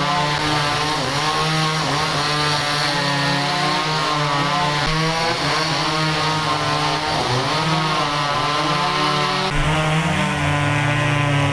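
Chainsaw running under load while cutting a fallen tree, its engine pitch rising and falling as the chain bites into the wood.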